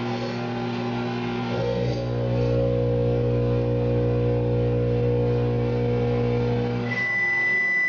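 Background rock music with guitar, which cuts off about seven seconds in. A steady high-pitched beep starts as it stops: the microwave oven's end-of-cycle signal.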